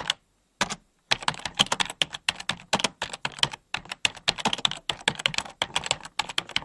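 Fast typing on a computer keyboard: a rapid, uneven run of key clicks that picks up about a second in after a short pause.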